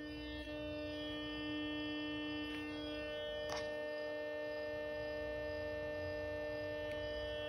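Steady electrical buzz pitched around 300 Hz, from a circuit driven by a function generator's 300 Hz square wave. Faint clicks come a few times, the clearest about three and a half seconds in.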